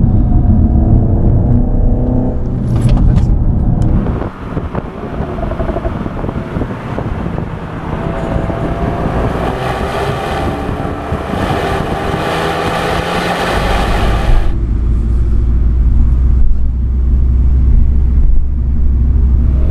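Renault Mégane RS's 1.8-litre turbocharged four-cylinder engine pulling under acceleration, its note climbing in pitch, then the upper part of the sound cuts off about fourteen seconds in, leaving a low rumble.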